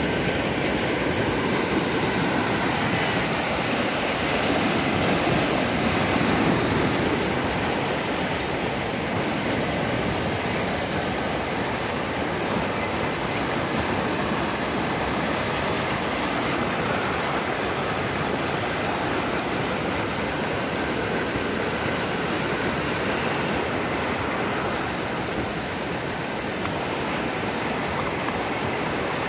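Whitewater rapids of an artificial slalom canoe course rushing over stone and concrete blocks: a steady, unbroken noise of churning water.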